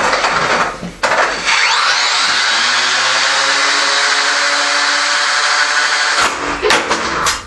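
A combat robot's electric motor starts about a second in with a rising whine, runs at a steady pitch for several seconds and stops. A few sharp clattering knocks follow near the end as the robot tips over in its test box.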